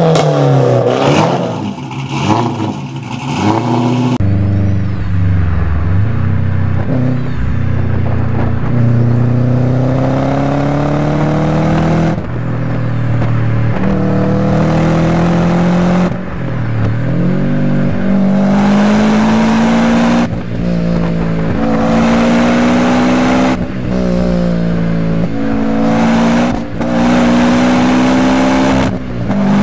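A 1996 Nissan 240SX S14's exhaust revved in quick blips for the first four seconds. Then, heard inside a car's cabin, an engine accelerates hard, its pitch climbing through each gear and dropping at gear changes every three to four seconds.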